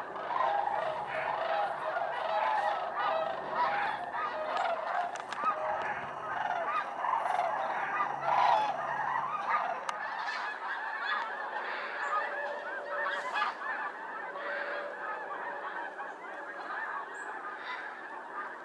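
A large flock of snow geese calling together: a dense, continuous chorus of many overlapping honks, easing slightly about halfway through.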